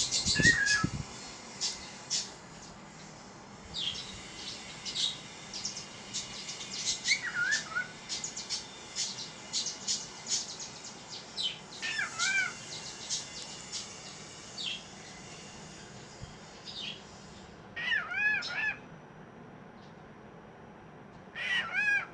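Pet birds calling: a run of quick, sharp, high chirps through the first half, and a few short mewing calls that rise and fall in pitch, the last two a little longer.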